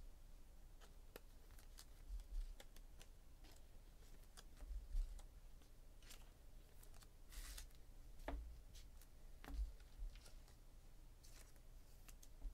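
Faint handling of trading cards on a table: scattered light clicks and rustles, a brief scraping rustle about seven seconds in, and a few soft thumps on the tabletop.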